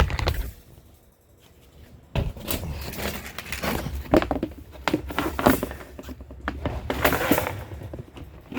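Repaired plastic floor tray being slid into a dog cage: after a short quiet spell, a run of clicks, knocks and scraping as it goes in, all the way without snagging.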